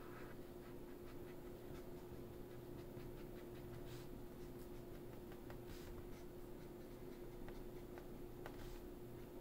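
Marker being drawn across paper: faint, scattered scratchy strokes, over a faint steady hum.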